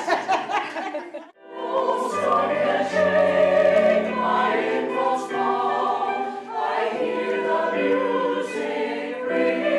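Mixed choir of women's and men's voices singing held notes in harmony. The singing starts abruptly about a second in, cutting off a man's speaking voice.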